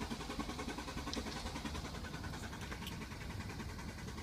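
Mercedes ML350 not starting after the start button is pressed: a rapid, even ticking over a low hum, with no engine cranking or catching.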